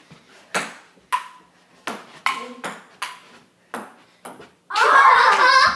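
Table tennis rally: the ping-pong ball clicks off the paddles and the table, about two hits a second. Near the end comes a loud yell lasting about a second.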